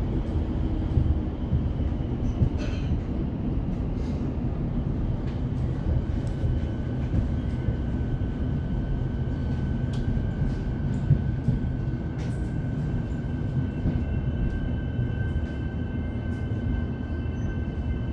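Suburban electric train running along the track, heard from inside: a steady low rumble with scattered clicks of wheels over the rails. A thin steady whine comes in about six seconds in, and a second, higher one joins it about halfway through.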